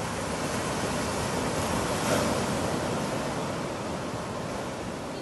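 Sea surf washing onto the shore, a steady rush that swells to a peak about two seconds in and then eases.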